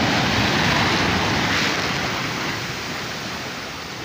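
Sea surf breaking and washing over shoreline rocks, loudest at first and fading as the wash runs back.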